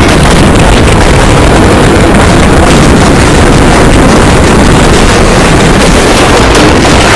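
Loud, steady wind noise buffeting the microphone: a dense, even rumble with no distinct events.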